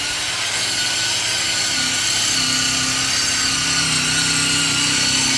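Power sander running steadily with a high whine, sanding paint off a steel tube down to bare metal.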